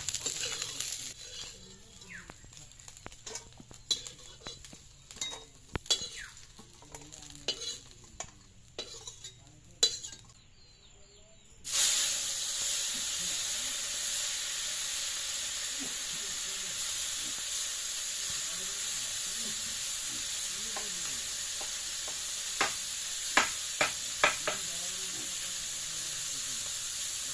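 Metal spatula scraping and clicking against an iron kadai as small fish dry-fry. About halfway in, a loud steady sizzle starts abruptly as something hits the hot pan, and it carries on to the end with a few spatula clinks near the end.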